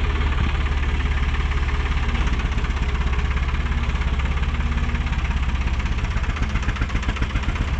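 Hattat 4x4 tractor's diesel engine running steadily, a rapid even beat of firing pulses with a deep low rumble.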